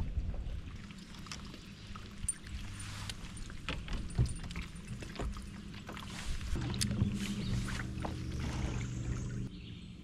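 Water splashing and knocks of handling against a kayak, with a low steady hum that comes in about six and a half seconds in and cuts off about a second before the end.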